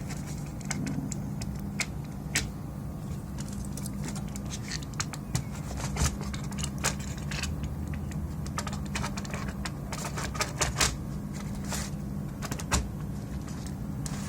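Irregular light clicks and taps of hard plastic and metal parts being handled, over a steady low hum, as a PlayStation 4 Slim is worked on.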